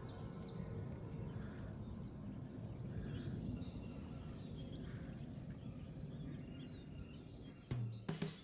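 Wild birds chirping and calling in short notes, with a quick run of repeated chirps in the first second or two and scattered calls after, over a low rumble of wind on the microphone. Music comes in near the end.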